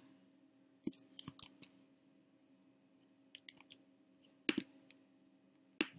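Short, sharp clicks of a computer mouse and keyboard, in small clusters a second or two apart, the loudest pair about four and a half seconds in. A faint steady hum runs underneath.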